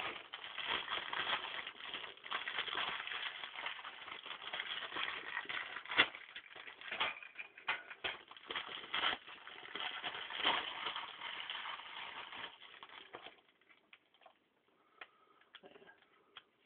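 Packaging crinkling and rustling as it is handled, a dense crackle with one sharp crack about six seconds in. The handling stops about thirteen seconds in, leaving only a few small clicks.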